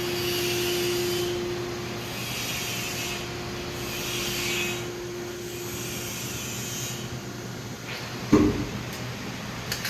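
Compactor baler's hydraulic pump motor running steadily as the platen rises, a hum with a whirring hiss. A single knock about eight seconds in.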